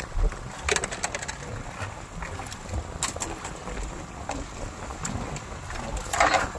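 Fishing boat at sea: a steady low rumble with wind on the microphone, a few sharp knocks, and a louder noisy burst near the end.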